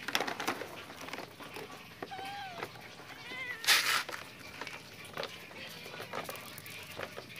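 Domestic cats meowing at feeding time: two short meows that bend in pitch, about two and three seconds in, followed by a short, loud hiss-like burst of noise. Light clicks run throughout.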